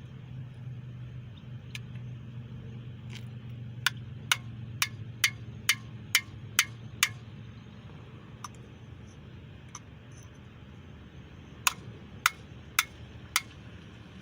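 Hammer blows on the cam freeze plug at the back of a small-block Chevy 350 engine block, driving it out: a run of about eight sharp strikes at roughly two a second, a pause, then four more near the end, over a steady low hum.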